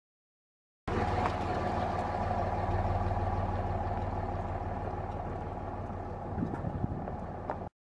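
Pickup truck carrying a truck camper driving slowly away on a gravel road, its engine running steadily with a low hum that fades slightly as it pulls away. A few irregular crunches from the tyres on gravel come near the end. The sound starts abruptly about a second in and cuts off just before the end.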